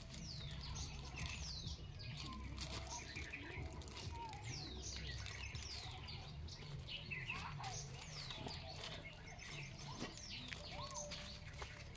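Small birds chirping repeatedly, many short high falling chirps, over a low steady rumble.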